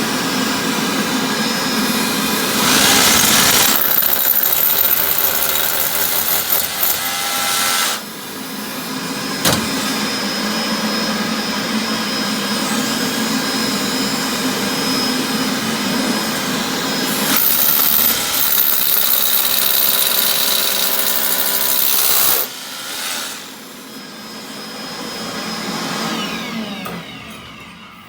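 Makita DVC350 18V cordless dust vacuum running steadily while a Makita DHR202 SDS rotary hammer drill bores holes in a wall, the vacuum sucking the dust out of the holes. The drilling comes in two louder stretches of about five seconds each, starting about 3 s and 17 s in, and the sound falls away near the end.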